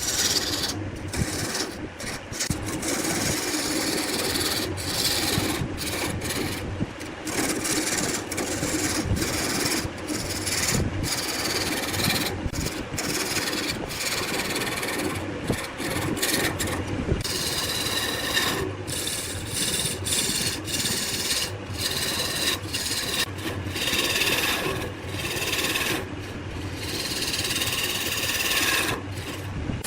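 Wood spinning on a lathe with a tool scraping and cutting against it. The rasping noise runs on continuously, broken by many brief lifts of the tool.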